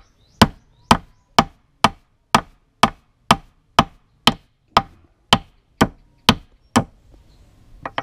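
Claw hammer driving a double-headed 8-penny nail into a wooden board: steady, even strikes about two a second, stopping about seven seconds in, with one more blow at the end.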